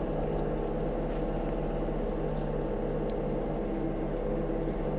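Kubota U35-4 mini excavator's diesel engine running steadily while the bucket works debris, heard from the operator's seat.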